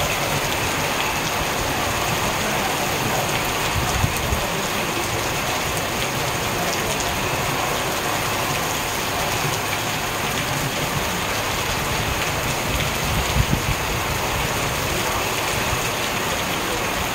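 Heavy rain pouring steadily onto paving, clay plant pots and leaves, with a few brief low knocks about four seconds in and again near the end.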